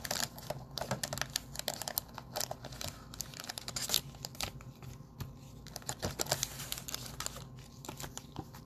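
An NBA Hoops Premium Stock mega box being unpacked by hand: its wrapped card packs crinkle and the cardboard rustles, with many quick irregular clicks and taps.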